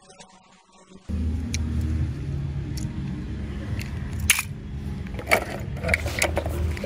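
Die-cast metal toy cars clicking and clattering as they are handled, taken from a plastic basket and set down on a plastic slide: a few sharp clicks scattered over a steady low hum that starts about a second in.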